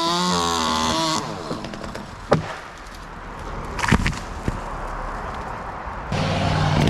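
Chainsaw running at changing revs, loud at the start and again from about six seconds in, with a quieter stretch in between that holds a sharp knock.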